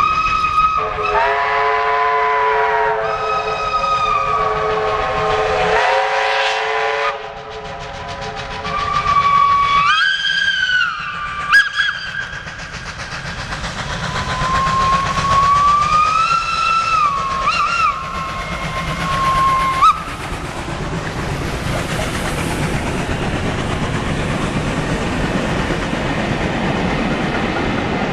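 Steam whistles of two SNCF 241 steam locomotives (241.A.65 and 241.P.17) double-heading a train, sounding a series of long blasts over the first 20 seconds or so. One early blast holds several tones at once, and the later blasts slide up in pitch at the start and down at the end. Once the whistling stops, the train rolls past with a steady rumble of carriages on the rails.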